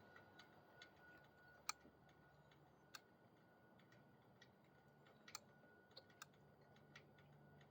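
Near silence broken by faint, irregular clicks of a hydraulic brake lever being pumped, working air bubbles out of a freshly filled master cylinder reservoir.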